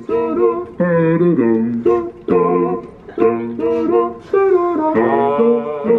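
A jaunty song, a man singing over strummed plucked strings, played by a push-button animatronic yeti display.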